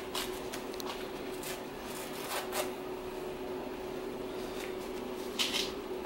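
Paper towel being torn into small pieces: a handful of short rips and rustles, the loudest near the end, over a steady low hum.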